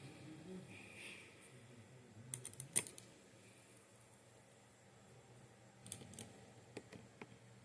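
Faint, sharp clicks and taps of small tools and parts being handled, in a quick cluster about two and a half seconds in and a few more about six to seven seconds in.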